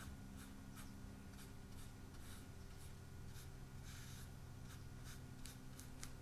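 Small paintbrush stroking acrylic paint onto smooth hot-press watercolor paper: faint short scratchy strokes, two or three a second, with one longer stroke about four seconds in.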